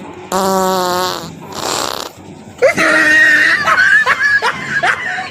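A prank fart noise, one buzzing blast just under a second long that sinks slightly in pitch. About two and a half seconds in, women burst into high-pitched laughing and shrieking.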